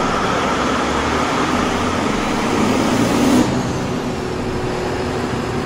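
Large Caterpillar diesel generator set engine running just after starting, a loud steady engine noise that swells to its loudest about three seconds in and then settles to an even run.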